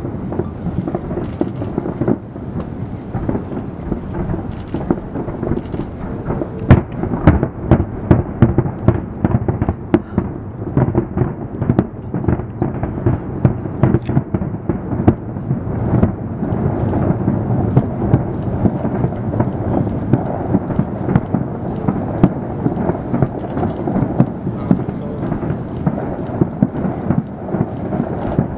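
Aerial fireworks shells going off in a dense, continuous barrage of rumbling booms and crackles, with one sharp loud bang about seven seconds in and rapid reports from then on.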